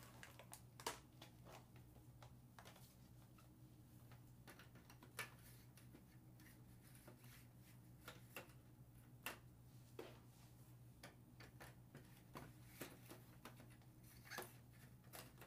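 Near silence with faint, scattered clicks and light knocks of plastic video-game cases being handled and put away, over a low steady hum.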